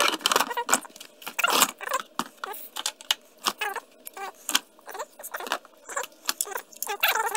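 Hard plastic ATV body panels clattering and knocking against each other as they are handled in a cardboard box: a quick, irregular run of light clicks and knocks.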